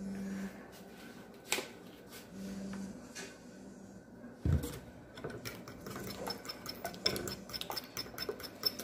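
Fork beating French toast egg batter in a bowl: a fast run of metal clinks against the bowl through the second half, after a low thump and a few clicks of kitchen items being handled.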